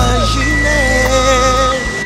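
Gospel singing with music, and a two-tone siren switching between a high and a low note about every half second. A steady low hum runs underneath.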